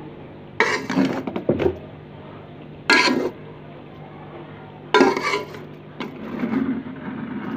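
A serving spoon scraping and knocking against the side of an aluminium pot in short bouts of clatter as cooked white rice is fluffed.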